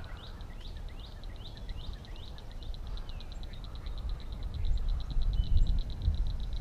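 A frog calling from the pond edge: a series of short, high clicking chirps, a few a second at first, that speed up into a fast trill about halfway through. A low rumble grows underneath in the second half.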